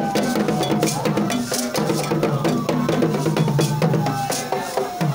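Procession drumming on large wooden barrel drums with other percussion, a dense rhythm of strikes. Over it a high sliding tone falls slowly and jumps back up, about every four seconds.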